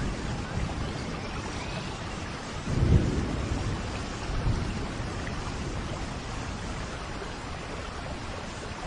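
Steady rain with low rumbles of thunder, the loudest about three seconds in and a smaller one shortly after.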